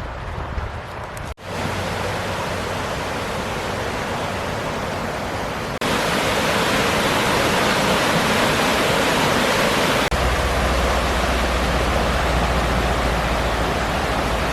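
Loud, steady rush of a waterfall, an even hiss of falling water with no break. It drops out for an instant about a second and a half in and jumps louder about six seconds in, with a low rumble joining it near ten seconds.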